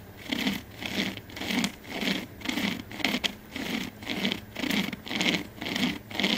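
Hand-pulled chain saw cutting through a pine trunk near its base, worked back and forth by cords in an even rasping rhythm of about two strokes a second.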